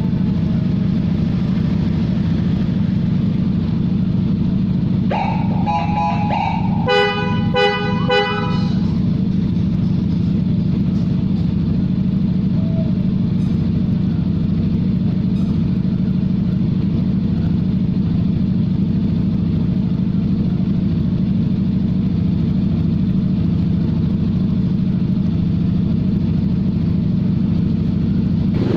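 Scooter engine idling steadily. About five seconds in, an electric horn gives one long blast of nearly two seconds, then a quick string of about five short toots. A siren winds down and fades out in the first second.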